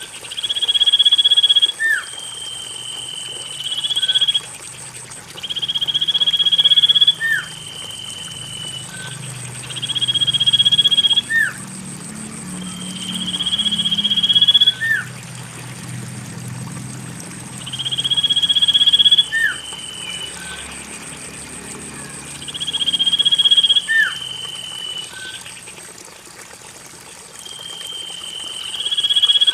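Common iora (cipoh) calling over and over: a long, slightly rising whistle, each ending in a quick upward flick, repeated every three to four seconds. It is used as a lure call to get a silent caged iora singing. A steady, thin high tone runs behind it.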